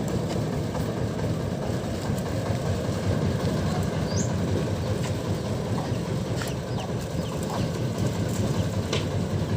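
Crank-started diesel engine of an odong-odong mini tourist train running steadily, a dense low rumble, with scattered light clicks and rattles.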